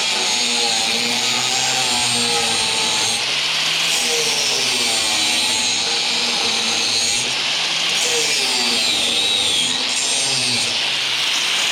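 Power grinder grinding a broken steel hinge-pin stub flush with the hinge plate: a continuous harsh grinding hiss, the motor's pitch wavering up and down as the wheel is pressed into the metal.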